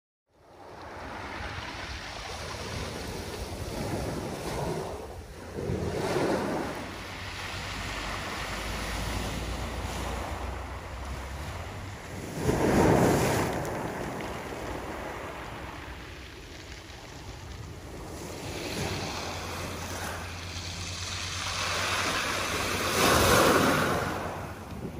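Small sea waves washing onto a pebble beach, a steady wash that swells three times as waves break, with wind rumbling on the microphone.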